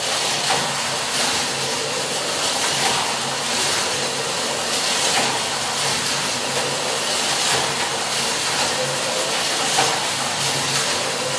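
Carrera slot car running laps on a plastic track: a steady whirring hiss with small swells.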